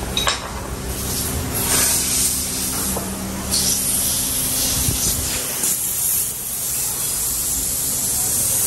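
Compressed-air spray gun hissing steadily as it sprays paint onto a brake caliper, the hiss swelling louder about three and a half seconds in.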